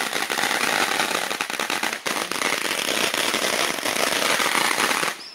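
Ground fountain firework spraying sparks: a dense crackling hiss that drops off sharply near the end.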